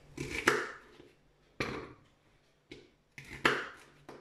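Knife cutting through an onion onto a plastic cutting mat. About four sharp knocks come roughly a second apart.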